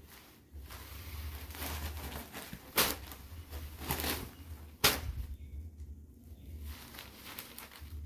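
Cotton saree being handled and opened out: the cloth rustling, with three sharp snaps of the fabric about three, four and five seconds in.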